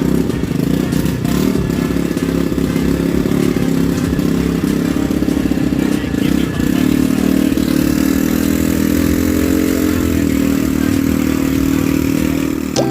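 A small engine running steadily close by, its pitch rising a little a bit past the middle and then settling.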